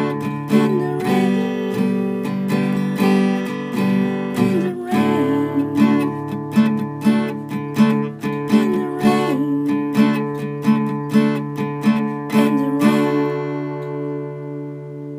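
Acoustic guitar strumming chords in a steady rhythm over a sustained low note, ending on a final chord that rings out and fades away near the end.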